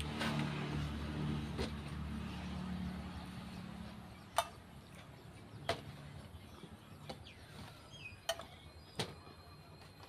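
A passing motor vehicle's engine hums low and fades away over the first few seconds. Then come a few sharp clicks, and near the end a bird gives short downward-sliding calls.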